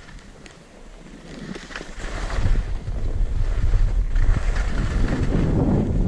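Wind buffeting a GoPro's microphone, building into a loud low rumble from about two seconds in as the skier gathers speed, with skis sliding over packed snow.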